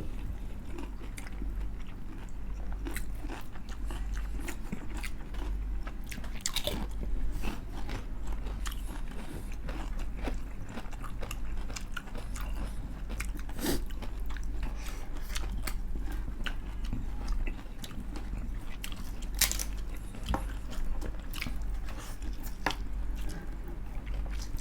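Close-up chewing and crunching of super crispy fried chicken skin: a steady run of sharp, irregular crunches and bites, over a low steady hum.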